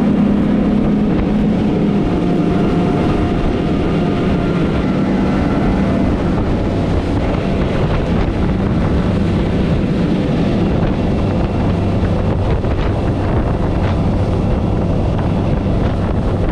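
Triple Mercury Verado 400 outboards running steadily at speed, a constant engine drone mixed with the rush of the churning wake and wind on the microphone.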